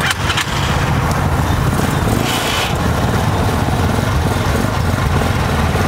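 The 300cc water- and air-cooled engine of a double-rear-axle cargo trike (motocarguero) running steadily at idle.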